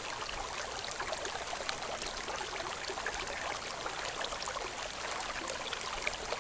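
Steady trickling and splashing of running water.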